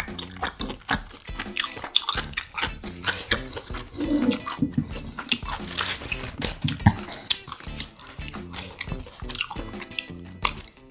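Close-miked eating sounds: wet chewing, lip smacks and mouth clicks as a leaf-wrapped bite of marinated grilled duck is eaten, over background music.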